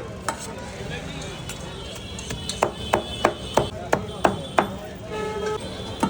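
Knife chopping on a cutting board in irregular strokes, a few scattered at first, then a quicker run of about three a second in the middle.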